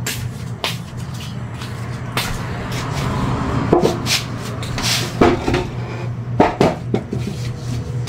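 Knocks, bumps and short scrapes of a wooden chair being handled and shifted on a concrete floor, with footsteps, scattered irregularly over a steady low hum.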